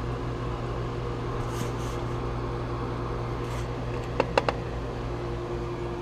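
Boiler circulator pump running with a steady hum and a bit of noise that is judged not bad. Three sharp ticks come about four seconds in.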